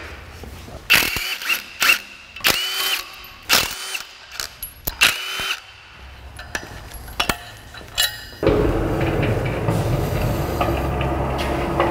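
Cordless drill with a socket driving out the engine-stand mounting bolts on an engine block, in several short runs, each with a high whine that rises as it spins up. A steady low rumble takes over for the last few seconds.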